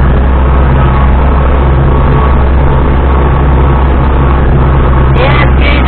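Ursus C-362 tractor's diesel engine running steadily under load, heard loud from inside the cab while it drives a rotary mower through meadow grass.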